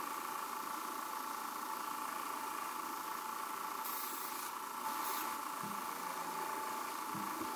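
Small benchtop belt grinder running with a steady whine while a knife blade is ground by hand against the abrasive belt at the contact wheel, with two short bursts of grinding hiss about four and five seconds in.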